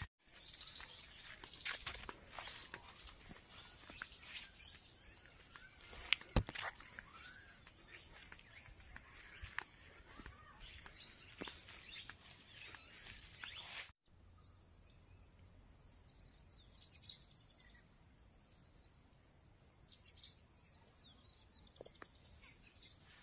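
Insects calling steadily in a continuous high buzz that pulses for the first few seconds, with a few short bird chirps in the second half and a couple of sharp clicks about six seconds in.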